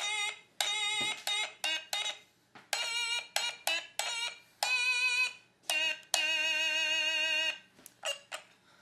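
A short melody played as separate pitched notes that start and stop sharply, several with a wavering pitch, and one long held note shortly before the end.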